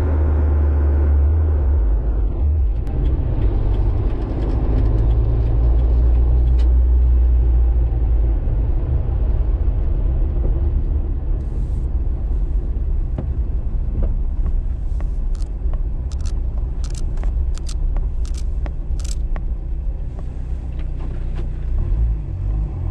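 Jeep Wrangler TJ being driven, heard from inside the cab: a steady low engine and road rumble. Partway through comes a run of short sharp ticks or rattles.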